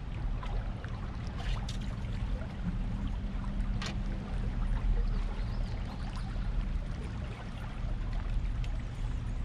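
Water trickling and lapping along a jet boat's hull on a river current, over a steady low hum, with a few faint clicks about one and a half and about four seconds in.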